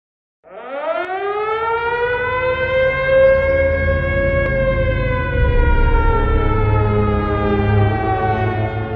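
Soundtrack sound effect: a siren-like wail that starts about half a second in, rises in pitch over the next few seconds, holds, then slowly sinks, over a steady low rumble.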